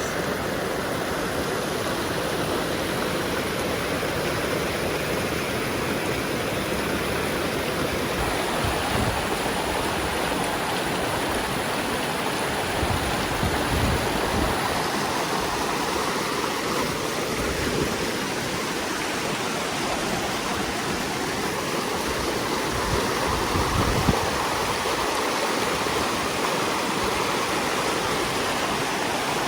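Creek water rushing steadily, with a short thump about two-thirds of the way through.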